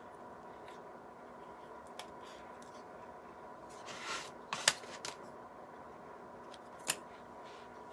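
Wooden craft stick scraping thick paste and tapping against a plastic container: a soft scrape about four seconds in, then a few sharp clicks, over a faint steady hum.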